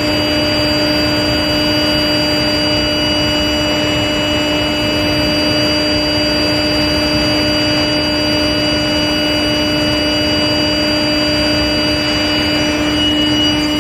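Induction hardening machine for long shafts running: a steady hum with several constant whining tones over an even, loud hiss.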